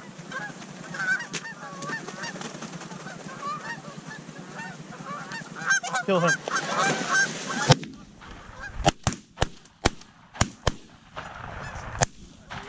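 Canada geese honking overhead, building to a dense chorus of calls. In the last few seconds this gives way to a run of sharp cracks, shotgun shots from the blinds.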